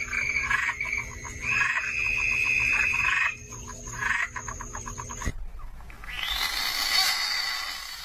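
A frog calls in a series of loud pulsed trills, the longest lasting about two seconds, over a steady high tone. About six seconds in, a horned frog gives a harsh open-mouthed scream lasting about two seconds.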